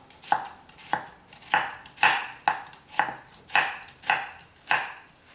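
Chef's knife slicing a halved onion thinly on a bamboo chopping board: steady, even strokes about two a second, each a crisp cut through the onion ending against the board.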